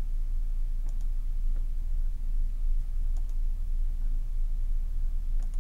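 Steady low electrical hum from the recording microphone, with a few faint mouse clicks as windows are closed on the computer.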